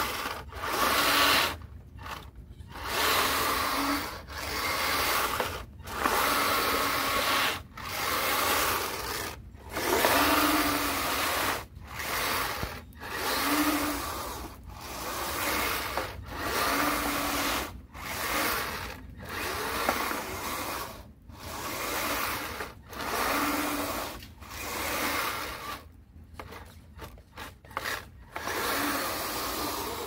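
Kyosho Blizzard RC snowcat driving in short stop-start runs over wet concrete: its motors and tracks grind and clatter while the blade scrapes slush, each run lasting a second or two with brief pauses between, about fifteen runs in all.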